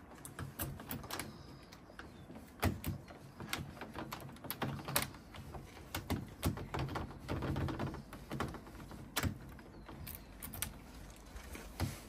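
Irregular clicks and knocks from a uPVC door's euro cylinder lock and its hardware being handled and worked by hand. The sharpest knocks come about 2.5, 5, 6.5, 9 and 12 seconds in.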